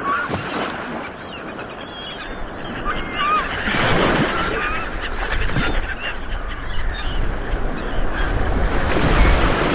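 Ocean waves rolling onto the shore, the surf swelling about four seconds in and again near the end, with short, high bird calls over it.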